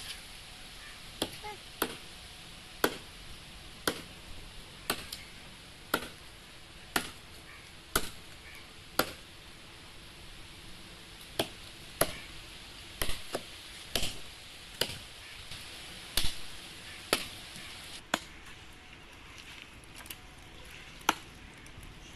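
Wood chopping: a hand-held blade striking into a log, sharp blows at about one a second with an uneven rhythm, pausing briefly about halfway and again near the end before one last blow.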